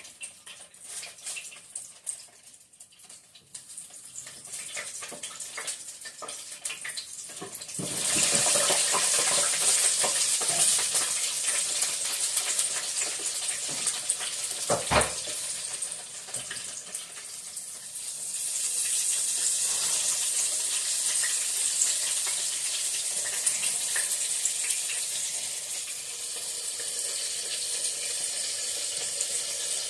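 Chicken frying in hot oil: a steady high sizzle with light crackles, which jumps up suddenly about eight seconds in. There is one sharp click about halfway, and the sizzle eases briefly a little later before building again.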